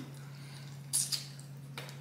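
Close-up mouth sounds of eating snow crab meat: a couple of short wet smacks about a second in and another near the end.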